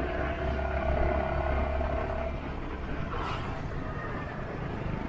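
City traffic heard from a moving scooter: engines running over road and wind noise. A low rumble and a steady hum drop away a little over two seconds in.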